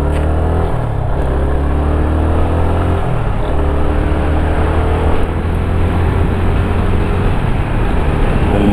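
Motorcycle engine running at road speed, heard from the bike itself, with a steady rush of wind and road noise. The engine note shifts about a second in and again near three seconds in, then holds steady.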